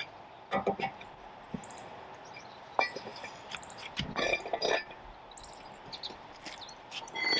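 Scattered metal clinks and knocks from a cross lug wrench working on lug nuts and a steel wheel during a tyre change. A few strikes ring briefly, with a cluster about four seconds in and another near the end.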